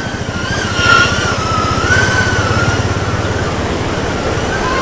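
Micro FPV drone's brushless motors whining, the pitch wavering up and down with the throttle, with a brief louder surge about a second in.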